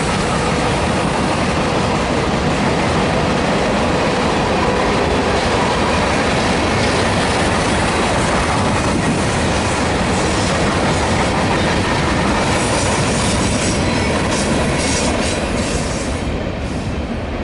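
Freight cars of a mixed manifest train rolling past: a steady, loud rumble of steel wheels on rail with clickety-clack over the rail joints, easing off slightly near the end.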